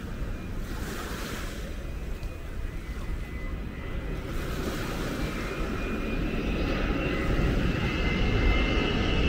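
Jet airliner on low approach over the sea, its engine noise growing steadily louder as it nears. A high whine rises over the low rumble in the second half, with wind and surf underneath.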